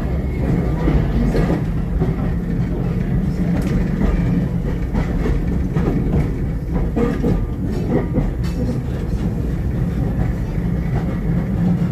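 Brisbane City Council FM Saloon tram 400 running along the track, heard from inside the saloon: a steady low rumble with scattered clicks and knocks from the wheels and car body.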